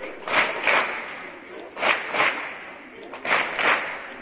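A large group of schoolchildren clapping in unison, two claps at a time. The double clap comes three times, about every second and a half.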